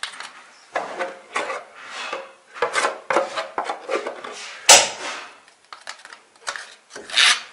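Spatula scraping gypsum plaster out of a cut-down plastic canister and smearing it onto a wall, in irregular rasping strokes, with a sharp knock about halfway through.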